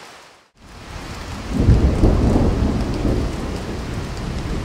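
Steady rain falling, with a roll of thunder that swells about a second and a half in and keeps rumbling. The sound drops out for a moment near the start.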